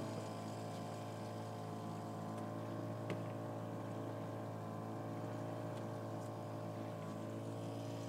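Small boat's petrol engine running steadily under way, an even low hum with no change in speed.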